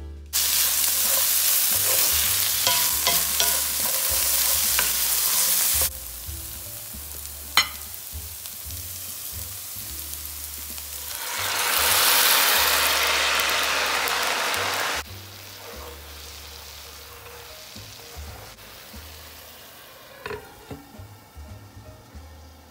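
Food sizzling in a hot cast-iron skillet. About eleven seconds in, a louder hissing sizzle swells up as a dark soy-based sauce is poured over the frying onions and garlic, and after a sudden drop near fifteen seconds it settles to a soft, steady simmer.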